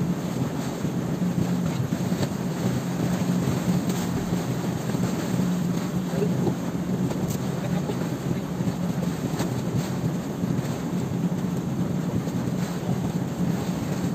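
Outrigger boat's engine running steadily at a constant pitch, with water rushing along the hull and outrigger.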